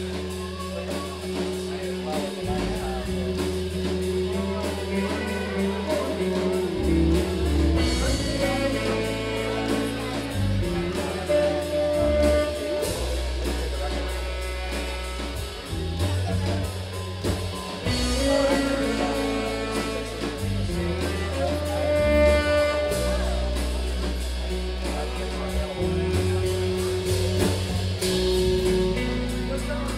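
Live rock band playing: electric guitars over a bass line that changes note every couple of seconds, with drums and a sung vocal line.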